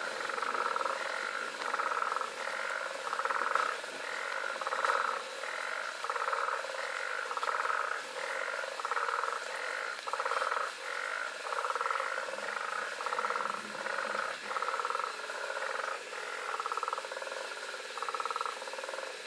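A chorus of frogs calling at night: overlapping rhythmic, pulsed calls repeating about twice a second, with a faint steady high-pitched insect-like tone behind them.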